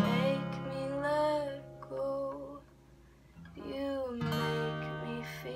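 Acoustic guitar chords strummed and left to ring, the first at the start and another about four seconds in, with a woman singing drawn-out notes over them in a slow song.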